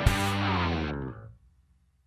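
Intro music with guitar, a final chord struck at the start that rings out and fades away over about a second and a half, then silence.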